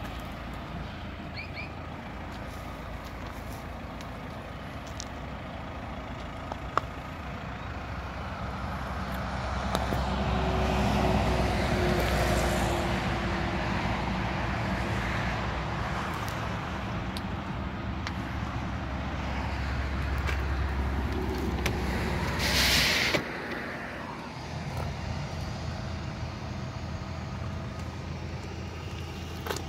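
Motor vehicle rumbling steadily, swelling about a third of the way in. Near three quarters of the way through comes a short, loud, air-brake-like hiss, after which the low rumble drops away.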